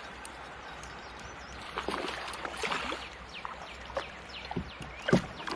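A hooked smallmouth bass splashing and thrashing at the water's surface beside a kayak. Irregular sharp splashes start about two seconds in, and the loudest comes near the end.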